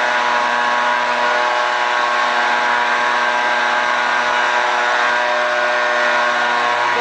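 Petrol backpack leaf blower running at a steady speed, its engine hum under the hiss of air blowing out of the tube.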